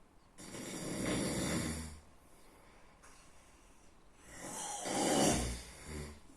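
A person snoring in their sleep: two long snores about four seconds apart, the second slightly louder and ending in a few quick fluttering pulses.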